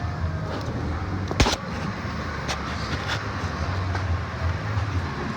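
2002 Ford F150 V8 idling steadily, with one sharp knock about a second and a half in. The engine is running after its over-fuelling aftermarket injector was replaced, with fuel trims described as all straightened out.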